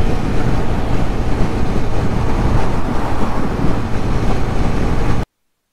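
TVS Apache 160 4V motorcycle's single-cylinder engine running steadily while riding, mixed with heavy wind noise on the microphone. The sound cuts off abruptly about five seconds in.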